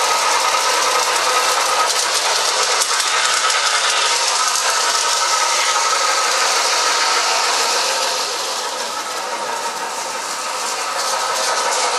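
Lionel O-gauge model train running on three-rail track laid on carpet: a steady motor-and-gear whine over a constant clatter of wheels on the rails. The sound drops somewhat quieter about two-thirds of the way through, then comes back up near the end.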